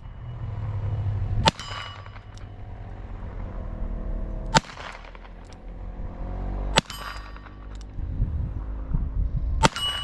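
A Webley Mk VI revolver firing .45 ACP handloads, four single shots about two to three seconds apart, each leaving a brief metallic ring.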